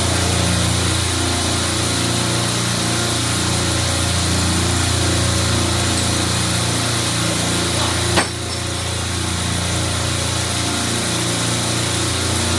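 Steady machine-room din from running refrigeration equipment: a constant low hum under a hiss. A single sharp knock comes about eight seconds in, as the hanging compressor is handled.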